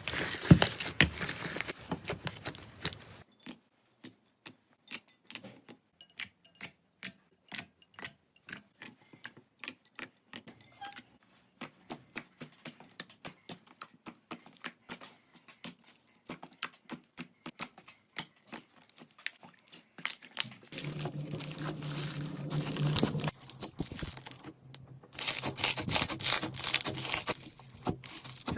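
Slime being pressed and squished by hand, giving a long run of sharp, irregular pops and clicks, about two or three a second. Toward the end this turns into denser squishing noise with a low hum underneath.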